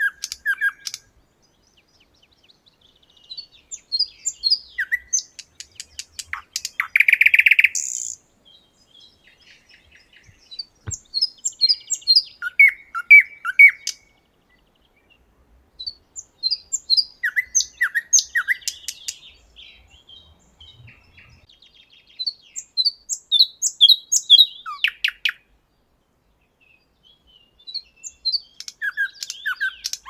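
Nightingale singing in separate phrases of a few seconds each, with short pauses between. The phrases mix fast repeated clicking notes and whistles, and one loud rattling trill comes about seven seconds in.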